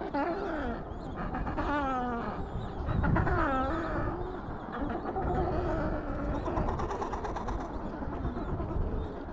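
Adélie penguins calling: a series of harsh, warbling calls that slide down in pitch, strongest in the first four seconds, with fainter calls after.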